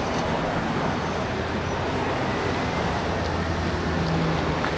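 Street traffic noise with a car engine running nearby: a steady low hum under an even hiss.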